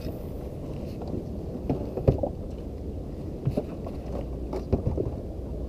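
Steady low rumble of wind and water around an inflatable fishing boat, with a few small knocks and clicks scattered through it.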